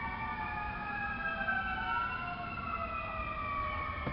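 Sirens of several approaching fire trucks wailing at once, their tones slowly rising and falling over one another.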